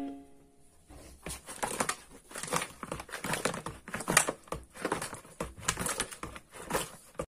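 Cling film stretched over a plastic bowl crinkling as the bowl is shaken to coat chicken drumsticks in sauce, the drumsticks sliding and knocking inside. Irregular rustling bursts start about a second in and repeat until the sound cuts off.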